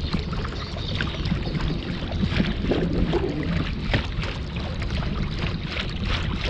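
A kayak on open water: steady rumble with many irregular small splashes and knocks around the hull.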